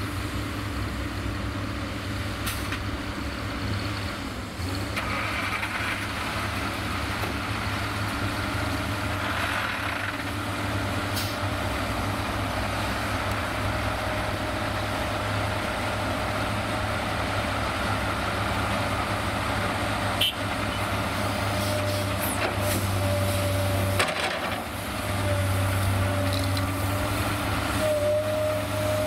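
Diesel engines of a Komatsu PC210LC-8 crawler excavator and a Kamaz tipper truck running steadily as the excavator digs and loads, with a high whine that comes and goes over the engine hum. A few sharp knocks come from the bucket working and soil landing in the truck's steel tipper body.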